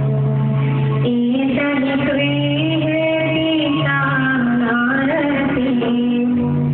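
A song with singing over instrumental backing, with long held notes over a steady bass line.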